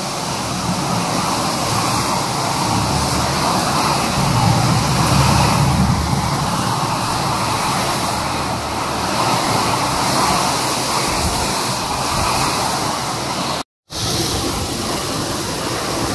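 Heavy rain pouring down in strong wind, a steady rushing noise with a deeper rumble swelling about four to six seconds in. It cuts out for a moment near the end and comes straight back.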